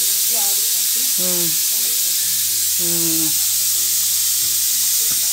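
Spoon stirring and pressing rice-flour dough in a steel pot, under a loud, steady hiss. Short falling-pitched calls recur about once a second in the background.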